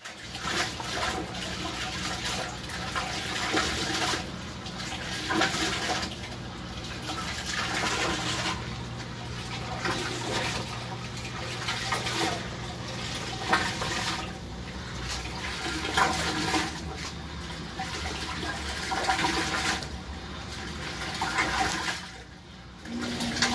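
Water gushing and splashing from a Jecod DCS-4000 DC water pump's outlet jet. The flow surges up and down every couple of seconds: the pump is oscillating in output rather than running steadily.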